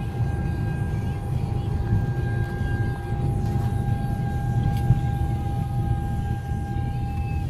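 CN freight train's diesel locomotives and cars rumbling past, with a steady high whine that stops near the end.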